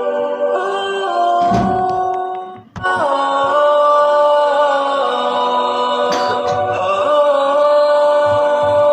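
Background music of held, choir-like sung notes with little else, changing pitch only a few times; it breaks off briefly just under three seconds in and then resumes.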